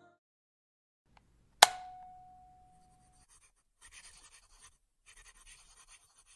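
A single sharp clink with a ringing tone that dies away over about a second and a half, then a pen scratching on paper in two short spells.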